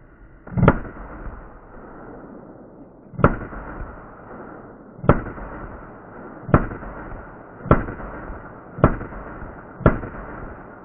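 Smith & Wesson M&P 9mm pistol fired from inside a car through its windshield: seven single shots spaced one to two and a half seconds apart, each trailing off in a lingering echo.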